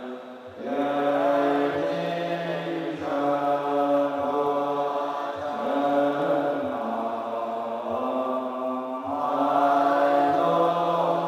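Assembly of Chinese Buddhist monks chanting a liturgy in unison, many voices on a slow sung line, with a short breath break at the very start.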